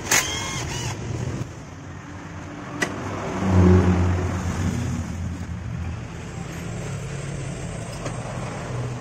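A cordless impact wrench whirs briefly at the start, undoing a bolt on the scooter's lower engine mount. A motor vehicle's engine rumble swells about three and a half seconds in and then fades slowly.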